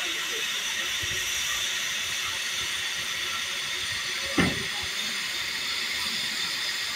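Steam locomotive No. 16440 standing with a steady hiss of escaping steam, its safety valves blowing off. A single short knock sounds about four and a half seconds in.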